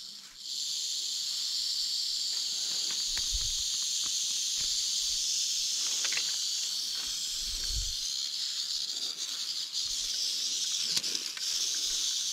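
Timber rattlesnake rattling: a steady, high, dry buzz that keeps up without a break. A couple of soft low thumps come about three seconds in and again near eight seconds.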